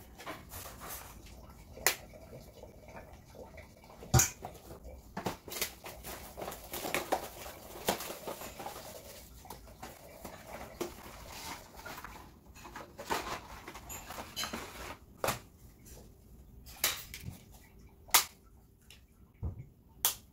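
Dry lasagne sheets being handled and laid into a ceramic baking dish: scattered sharp clicks and taps, with softer scraping and rustling between.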